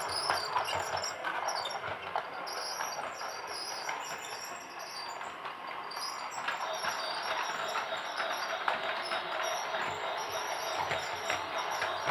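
Toy train running: a steady whirring with many small clicks throughout.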